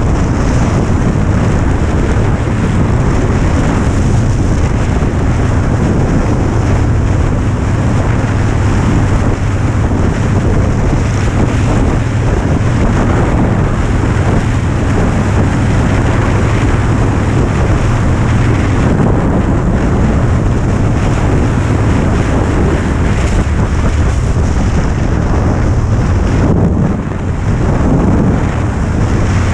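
Cruiser motorcycle engine running steadily at highway cruising speed under heavy wind noise on the microphone, with a brief dip in level near the end.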